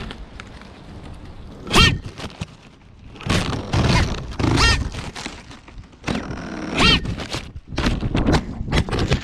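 FPV racing quadcopter crashing over and over: a series of hard knocks and thuds, three of them with the motors' whine briefly surging and dropping as the props strike, over a rough rushing noise.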